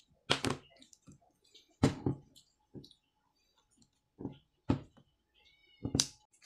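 About five sharp clicks and knocks as the parts of a Huawei Nova 3 smartphone are handled, pressed together and set down on a table.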